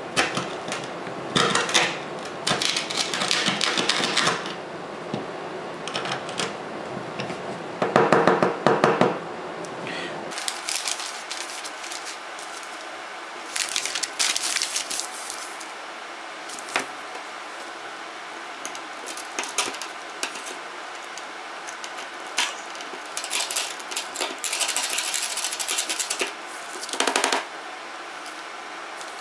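A screwdriver tip stabbing and scraping at the cracked glass back of an iPhone 5, irregular runs of sharp taps and gritty crunches as the glass chips away. Partway through, a newspaper rustles as it is spread under the phone.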